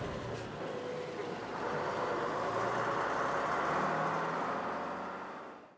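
An engine running steadily, fading out near the end.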